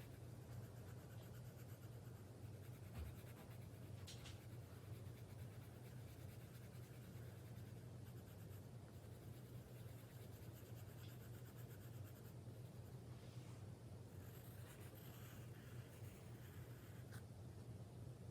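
Faint scratching of a drawing tool on paper, with a few short strokes standing out, over a low steady hum.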